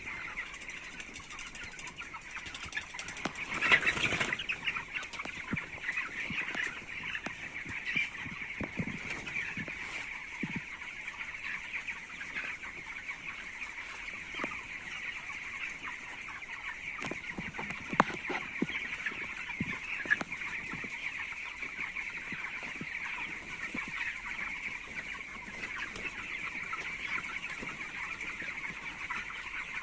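A large flock of young poultry chicks peeping continuously in a dense, high-pitched chorus. About four seconds in there is a short louder burst, like a rustle or flutter, and a couple of sharp ticks come later.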